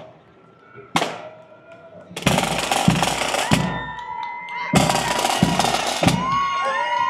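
Parade marching band: a single drum beat, then about two seconds in the snare drums roll in and the band starts playing, with held high notes over the drumming.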